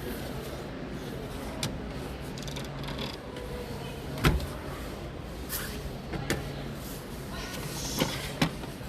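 Shop-floor background noise: a steady low hum with scattered knocks and clicks, the loudest about four seconds in, and a short hiss near the end.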